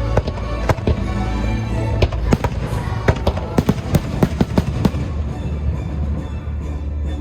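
Fireworks bursting in a rapid string of sharp bangs and crackles, thickest in the middle, over the show's loud soundtrack music.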